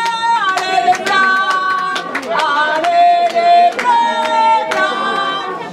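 Loud music of held melody notes, often two sounding together, stepping from note to note every half second to a second, with sharp hits cutting across it.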